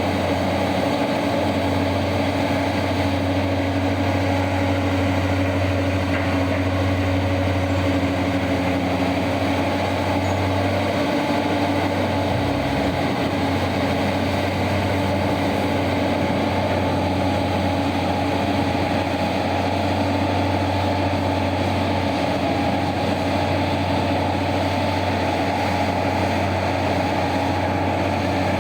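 Large diesel engines of heavy mining machinery, a mining excavator with a haul truck, running with a steady low drone and constant hum.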